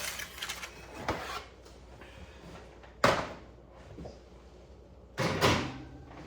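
Kitchen oven being opened and loaded, then shut: a rattling clatter, a sharp knock about three seconds in, and another heavy knock a little after five seconds.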